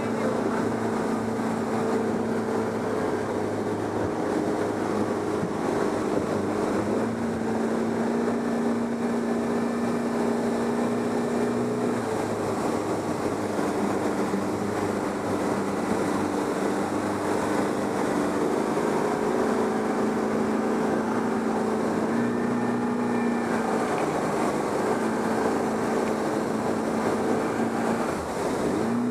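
Motorboat engine running steadily, its hum stepping up and down in pitch a few times, over a continuous rush of water.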